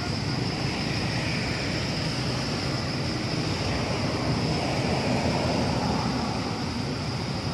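Steady rumbling outdoor noise, like wind on the microphone, with a constant high-pitched hiss over it.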